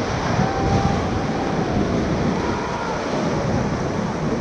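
Steady rush of whitewater from river rapids, with wind buffeting the microphone. Faint distant shouting can be heard under the water noise.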